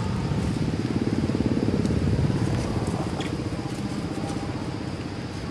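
A motor vehicle engine running close by, with a fast even pulse; it grows louder about two seconds in and then fades away, as if passing.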